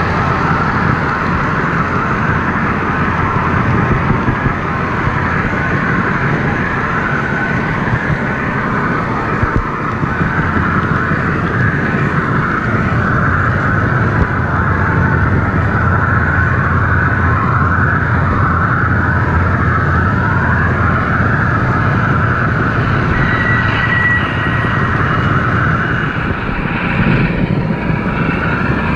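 Model subway train's motor and wheels running steadily along the track, heard close up from a camera riding on the train, with a whine that wavers in pitch. A short high tone sounds about three-quarters of the way through.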